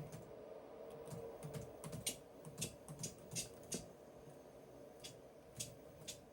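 Typing on a computer keyboard: a quick run of key clicks for the first few seconds, then a few single presses, over a steady faint hum.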